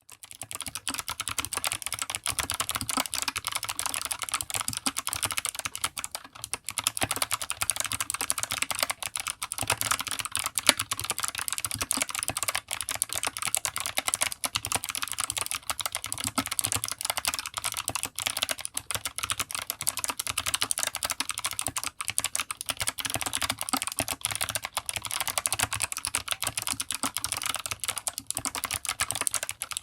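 Continuous fast typing on an Anne Pro 2 mechanical keyboard with clicky Kailh Box White switches and PBT OEM-profile keycaps, a dense stream of sharp clicks with a couple of brief pauses.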